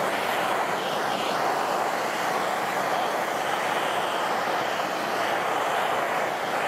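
Handheld gas torch burning with a steady hissing rush as its blue flame is played over weathered wood, scorching the bright boards darker.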